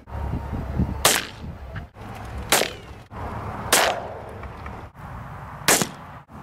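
Four single rifle shots at ground squirrels, each a sharp crack with a short tail, spaced a second or two apart.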